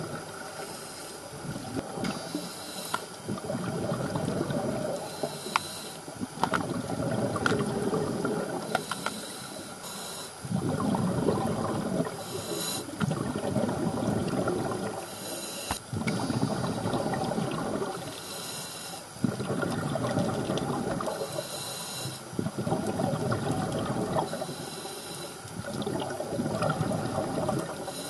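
Scuba diver breathing through a regulator underwater: a gurgling rush of exhaled bubbles every three to four seconds, with a short hiss of inhalation between them.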